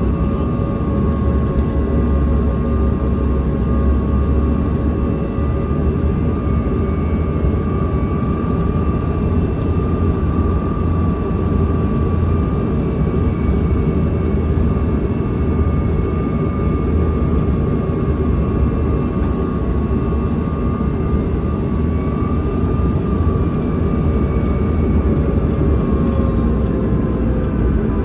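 Cabin noise of a Bombardier CRJ-200's rear-mounted General Electric CF34 turbofans on final approach: a loud, steady rumble of engine and airflow with a steady engine whine on top, which falls slightly in pitch near the end.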